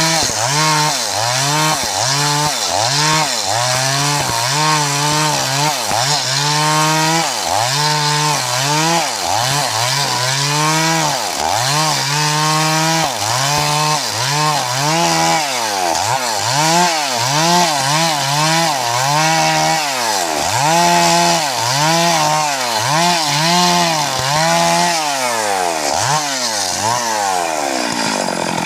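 Stihl MS382 two-stroke chainsaw revved up and down over and over, its engine pitch climbing, holding briefly and dropping about once a second, the cycles coming quicker in the second half.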